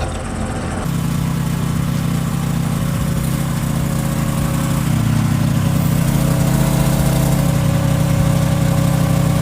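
Engine of an auger excavator running steadily, a continuous low drone that steps up in loudness about a second in.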